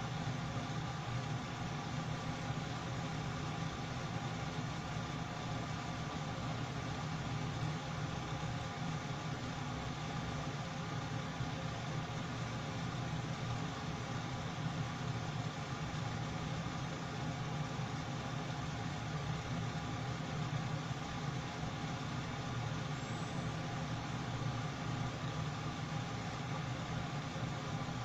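Kitchen ventilation fan running steadily: a constant motor hum with rushing air.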